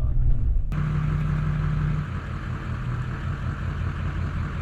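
Heavy farm machine's engine running steadily. Less than a second in, the sound changes suddenly and a steady hiss joins the engine hum.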